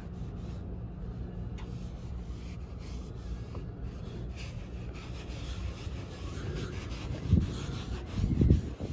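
Microfiber towel rubbed by hand over a painted car bumper, working wax into the paint: a steady scuffing, with two dull bumps near the end.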